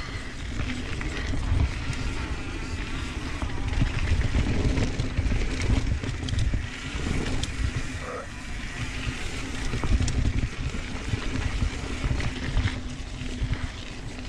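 Santa Cruz Tallboy mountain bike rolling fast down a dirt trail: a constant rumble of tyres and wind buffeting the camera, swelling and easing with speed, with scattered clicks and knocks as the bike goes over bumps.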